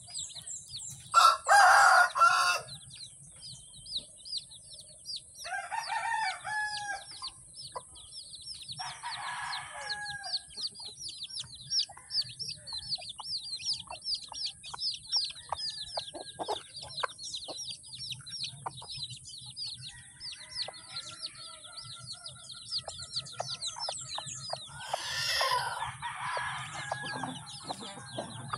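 A brood of chicks peeping continuously, a stream of short, high, falling cheeps several times a second. Louder calls from adult chickens break in over it, the loudest about a second in, others at about six and nine seconds and again near the end.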